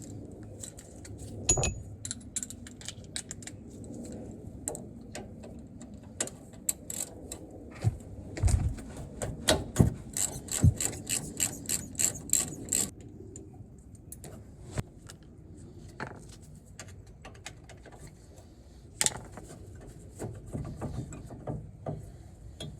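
Hand tools on a car's front brake caliper: scattered metal clicks and knocks, with a run of hand-ratchet clicking, about four clicks a second, near the middle, as the caliper bolts are undone.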